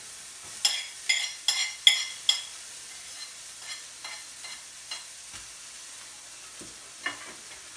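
Diced onion going into hot grapeseed oil in a skillet, frying with a steady sizzle. About five sharp clacks of the utensil against the plate and pan in the first couple of seconds as the onion is scraped in, and one more near the end.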